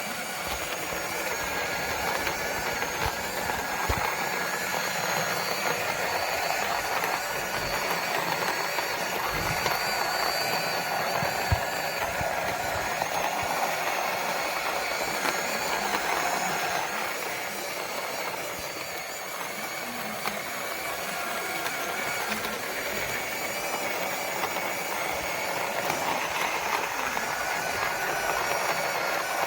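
Small cordless electric conical burr coffee grinder running steadily, its motor whining over the gritty crackle of beans being ground between the burrs.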